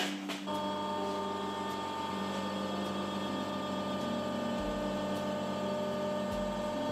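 Veneer press running as its platen closes down onto a veneered panel: a steady motor-and-pump hum with several fixed tones. A deeper low rumble joins about two-thirds of the way through.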